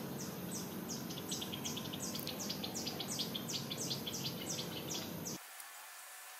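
A run of high chirps, each falling in pitch, about four a second and speeding up, over a steady low background noise. All of it cuts off abruptly about five seconds in, leaving a fainter background.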